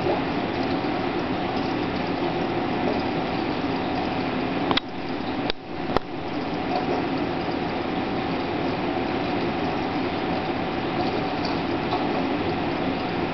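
Reef aquarium circulation pumps and moving water running steadily: a continuous hum under a watery hiss. About five to six seconds in, the sound briefly dips and there are a couple of sharp clicks.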